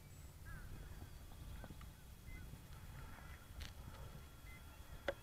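Quiet outdoor ambience: a steady low wind rumble on the microphone, with a few faint chirps and two sharp clicks near the end.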